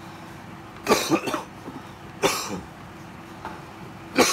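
A person coughing three times over a few seconds; the first cough comes as a quick run of two or three.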